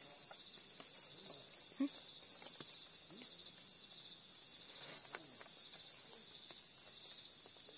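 Steady high-pitched chirring of forest insects, an unbroken drone.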